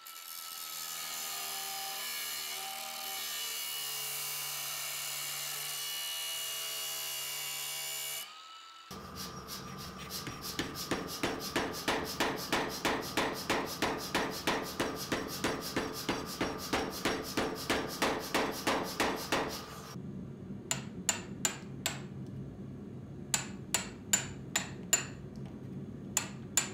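An angle grinder's cut-off disc runs steadily for about eight seconds, cutting a groove into the steel axe head, and stops suddenly. Then a power hammer pounds the hot steel in an even rhythm of about three blows a second for some ten seconds, thinning the edge for welding. Near the end come quick groups of four or five ringing hammer blows on the glowing steel held in a vise.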